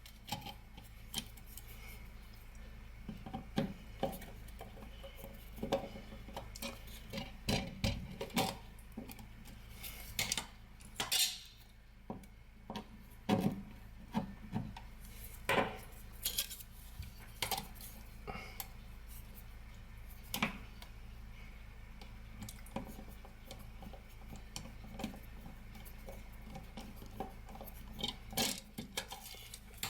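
Light clinks and taps of small hard objects being handled, many short knocks at irregular intervals over a faint steady hum.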